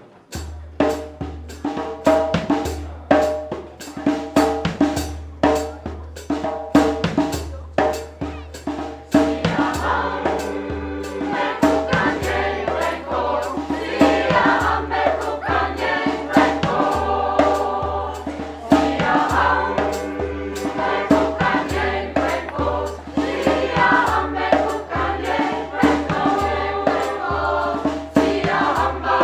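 Mixed choir singing to a steady percussion beat, the voices swelling to full strength about nine seconds in, with a steady low hum underneath.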